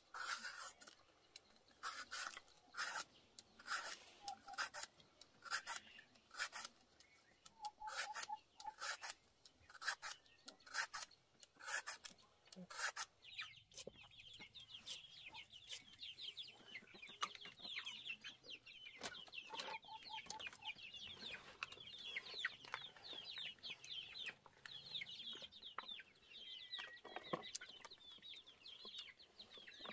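Knife scraping and slicing through coconut flesh in short strokes, about one to two a second, cutting it into thin strips. From about halfway, chickens' quick high peeping and clucking take over, with the strokes fewer.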